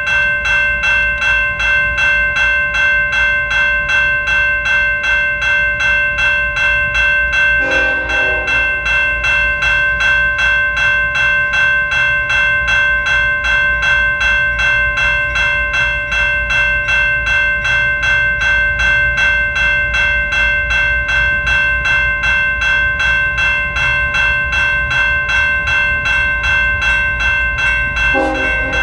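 Railroad grade-crossing bell ringing steadily in rapid, evenly spaced strokes, warning of an approaching train. A locomotive horn sounds briefly about eight seconds in and again near the end.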